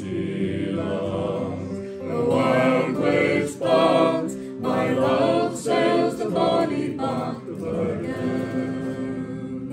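A small folk group singing a slow song in unaccompanied-style close harmony over a strummed acoustic guitar, the voices holding long notes. The singing swells about two seconds in and softens near the end.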